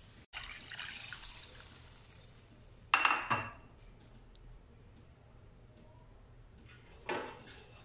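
Water heating in a wok around pieces of chicken: a soft hiss that settles over the first couple of seconds, with two sharp clinks, one about three seconds in and one near the end.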